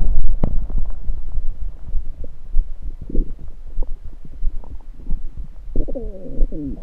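Human stomach gurgling, recorded close against the belly after drinking soda: a low rumble with scattered small pops, a short gurgle about three seconds in, and near the end a longer gurgle that falls in pitch.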